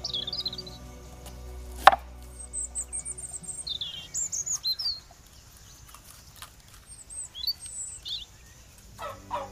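Small birds chirping and twittering in short high bursts. There is a sharp knock of a knife on a wooden cutting board about two seconds in, with a few lighter taps as a bell pepper is sliced.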